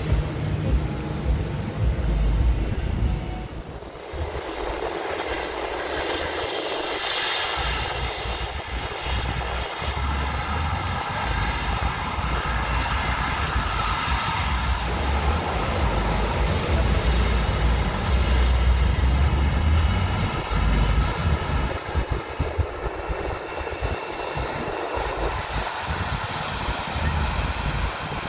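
A Boeing 737-700's CFM56 turbofan jet engines running on the runway: a steady jet whine with several high tones over a rumble, growing somewhat louder toward the middle.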